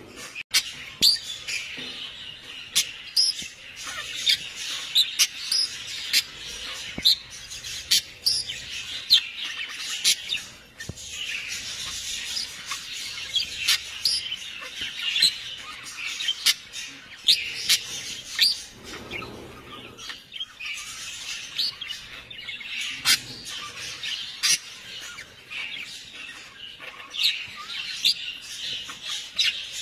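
Birds chirping: many short, high calls overlapping one another without a break.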